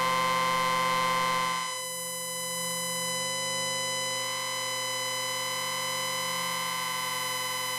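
Sustained synthesizer chord from the soundtrack music, held steady. About a second and a half in the chord shifts and gets a little quieter, and near the end it cuts off suddenly.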